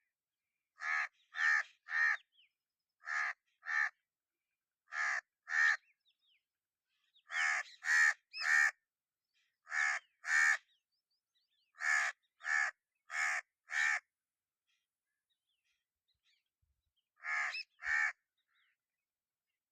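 A crow cawing: harsh caws in groups of two to four with short pauses between them, then a gap of about three seconds before a final pair near the end.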